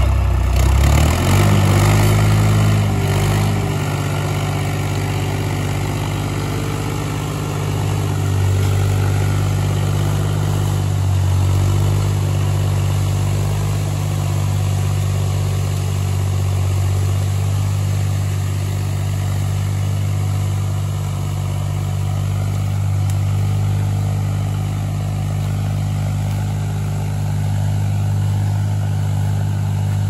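Farm tractor's diesel engine revving up over the first couple of seconds, then running steadily under load as the tractor drags a winched log.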